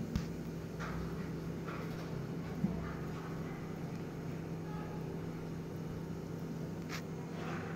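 Steady low electrical hum, as from a household appliance, with a few soft scuffs and knocks from kittens wrestling on a tiled floor; one sharper tap about two and a half seconds in.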